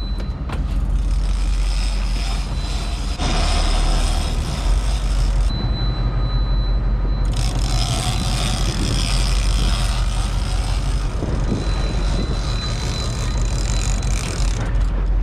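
Charter fishing boat's engine running steadily under way, with rushing wind and water noise.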